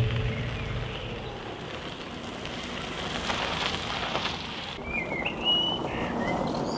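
Crackling hiss of a burning flame, swelling about three to four seconds in. Near the end it gives way to quieter outdoor air with a few short bird chirps.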